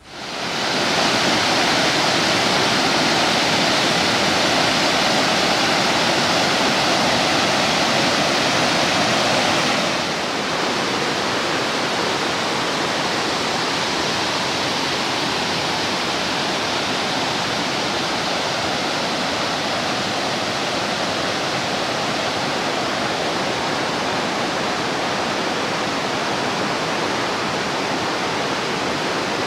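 Mountain stream rushing over rocks: a steady, loud noise of running water that drops slightly and shifts in tone about ten seconds in.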